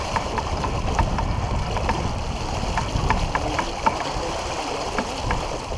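Water rushing and splashing along a sailboat's hull as it sails, over a low wind rumble on the microphone, with a run of light, irregular ticks a few times a second.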